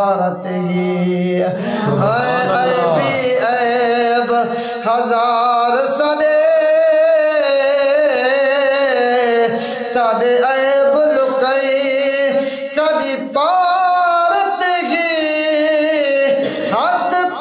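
A man singing a naat, a devotional Islamic song, in long drawn-out notes that waver and glide between phrases.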